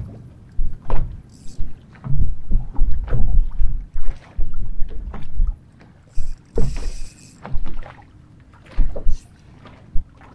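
Small waves slapping and sloshing against the hull of a bass boat in irregular low thuds, with a brief brighter hiss, like a splash, about six and a half seconds in.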